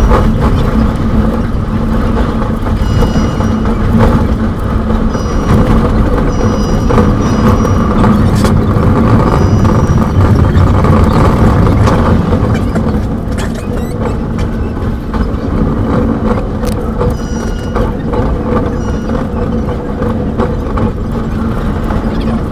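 Passenger train running, heard from on board in sped-up footage: a loud, steady rumble thick with fast clicks. Short high tones sound a few times.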